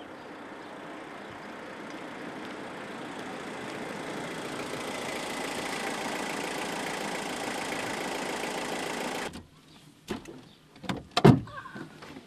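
A car drives up along a road, its engine and tyre noise growing steadily louder, and cuts off suddenly after about nine seconds. A few sharp knocks follow, then one louder thump.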